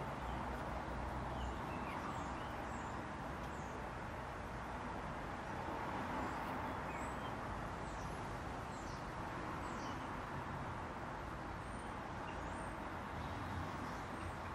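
European robin singing faintly: scattered thin, high notes and short falling phrases. A steady low background rumble is the loudest sound.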